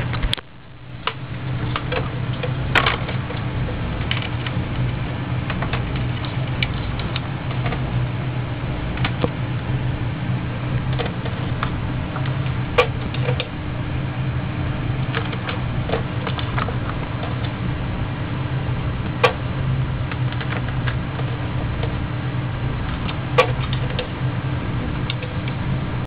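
A cockatiel's beak and feet clicking and tapping on a cabinet shelf, sharp clicks every few seconds, over a steady low hum.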